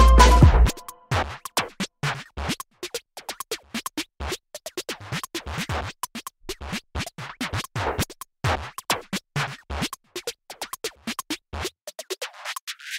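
Background music: a full, loud passage stops within the first second, then a sparse beat of short clicks and hits keeps going.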